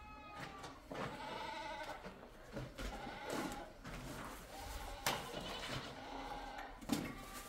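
Sheep bleating repeatedly in the background, a long wavering bleat about every two seconds. There are also a couple of sharp knocks from ceramic tiles being handled.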